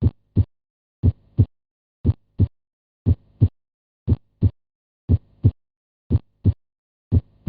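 Normal heart sounds: the first and second heart sounds (lub-dub) in even pairs, about one beat a second, with no third heart sound after the second.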